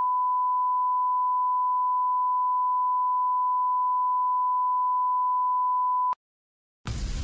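A single unbroken electronic beep tone, a pure test-tone-like sound effect added in editing, held at one steady pitch. It cuts off suddenly about six seconds in, and after a brief silence music starts near the end.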